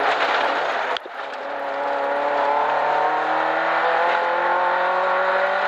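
Rally car engine accelerating hard, heard inside the cabin: the note cuts out sharply about a second in, then climbs steadily in pitch as the car pulls up the gear.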